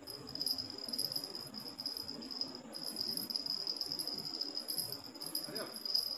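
High-pitched insect chorus, an unbroken pulsing drone that wavers in strength, with a faint low hum of open air beneath it.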